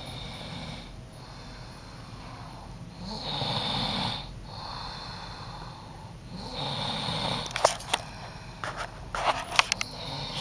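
A young woman snoring in her sleep with slow, even breaths; the two loudest snores come about three and six and a half seconds in. Near the end comes a run of short, sharp noises.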